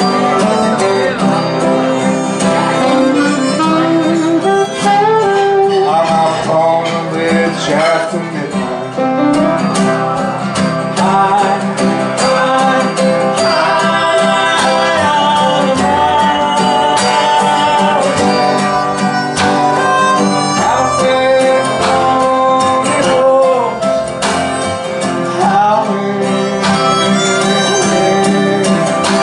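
Live blues band playing an instrumental opening: harmonica leading with bending notes over strummed acoustic guitars, drums and upright bass.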